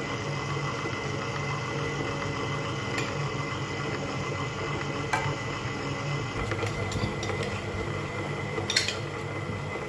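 Stand mixer running steadily, its flat beater turning through biscuit dough in a metal bowl, with a few light clinks.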